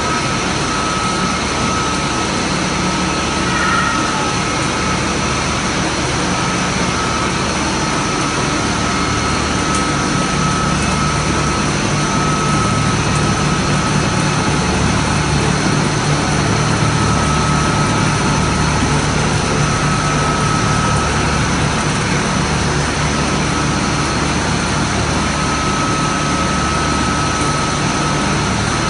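A Flottweg Z5E-4/444 Tricanter three-phase decanter centrifuge running at speed: a loud, steady machine hum and rush, with a high whine that comes and goes.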